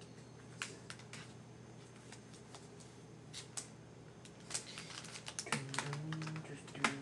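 Irregular light clicks and clacks, sparse at first and coming thicker in the second half, like hard plastic objects being handled or keys being pressed. A low steady hum-like tone sounds near the end.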